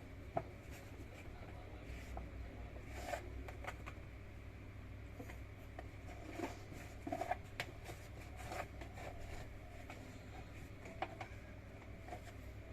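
Scattered light clicks and taps of washing-machine parts being handled, over a steady low hum, with a few sharper knocks.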